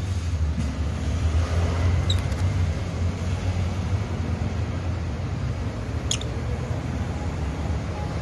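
Two short, high chirps from rosy-faced lovebirds, about two seconds in and again about six seconds in, over a steady low rumble of background noise.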